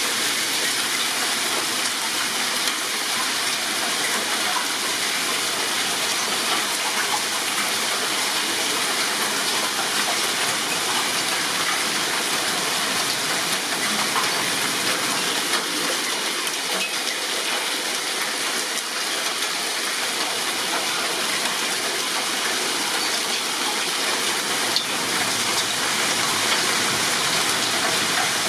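Heavy rain with hail falling in a thunderstorm: a dense, steady hiss of countless small impacts that keeps up without a break.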